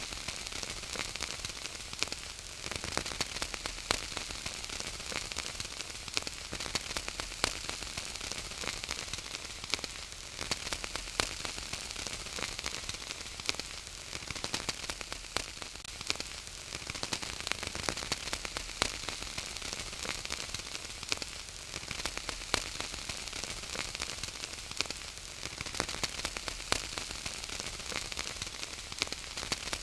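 Wood fire crackling in a fireplace: a steady hiss with frequent sharp pops and snaps scattered throughout.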